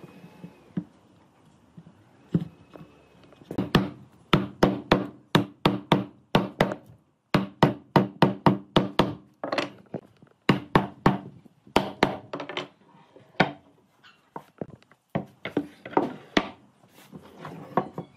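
Repeated hammer or mallet blows on wood, in runs of about two to three strikes a second with short pauses between the runs; each blow rings briefly.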